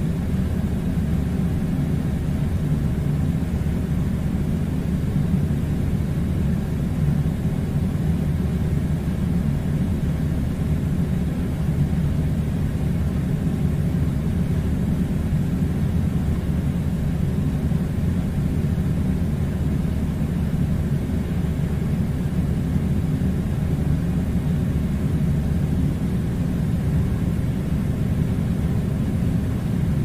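Air conditioner running with a steady low rumble that does not change.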